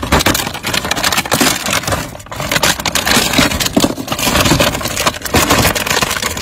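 Plastic toy cars and trucks clattering and scraping against each other and the sides of a clear plastic storage bin as a hand rummages through them, a dense run of rattles and clicks.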